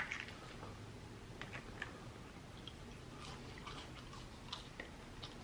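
A person chewing food close to the microphone: faint, scattered wet mouth clicks and small crackles, with one louder click right at the start.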